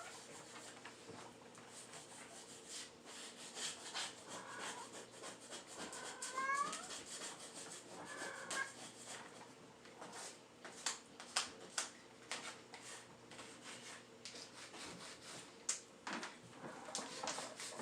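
A domestic cat meows a few times in the first half, short calls that slide up in pitch. Light clicks and scrapes run throughout.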